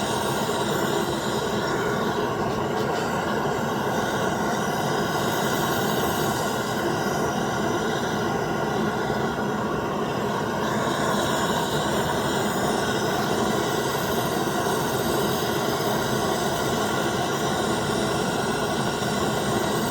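Gas soldering torch burning with a steady, even hiss of flame, heating a union fitting and 1-inch copper pipe up to soldering temperature.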